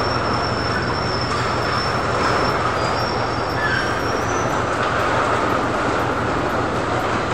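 Steady machinery noise with a low hum, and a faint high-pitched whine through the first few seconds.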